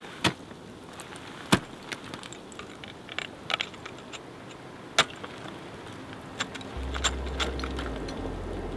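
Scattered sharp clicks and clinks, a few seconds apart, over a faint hiss; a low steady hum comes in near the end.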